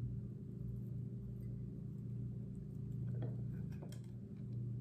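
A steady low hum, with a few faint light taps or clicks about three to four seconds in.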